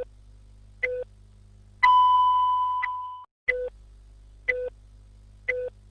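Countdown beep sound effect: three short beeps about a second apart, then a longer, higher tone that fades out, played twice in a row over a faint steady hum.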